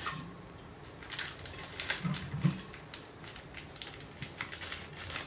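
Scattered light clicks and dry rustles of kitchen handling as bay leaves are picked up and added to a pot of boiling water, with a brief low hum of a voice about two seconds in.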